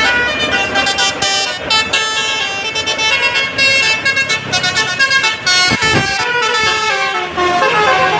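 Bus telolet horn: a tour bus's multi-tone musical air horn playing a quick melody of bright, stepping tones.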